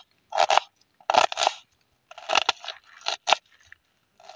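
Knife cutting through a red onion on a wooden chopping board: about six short crunching cuts, unevenly spaced.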